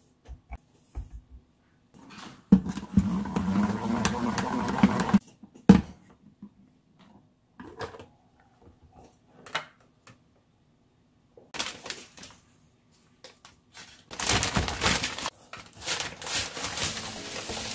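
Kitchen handling sounds. A few light knocks as vegetables are set on a steel plate, then a plastic salad spinner whirring for about three seconds. Near the end comes a longer stretch of paper rustling as a baguette is drawn from its paper bag.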